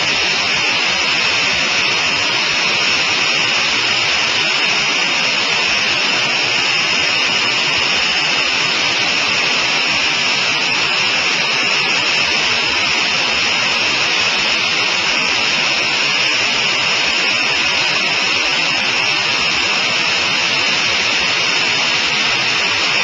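Steady in-flight cockpit noise of a Sonerai I single-seat light aircraft: the engine and propeller running at an even cruise setting, blended with the rush of air, unchanging throughout.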